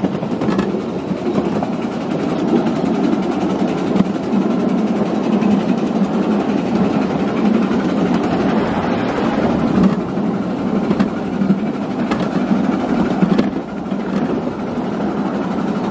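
Ride-on miniature railway train running along the track: a steady rumble and rattle of the cars' wheels on the rails.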